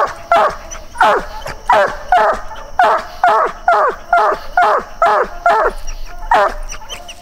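Year-old Treeing Walker hound barking treed at the foot of a tree: a steady run of about a dozen barks, roughly two a second, each dropping in pitch. The barking stops about six and a half seconds in.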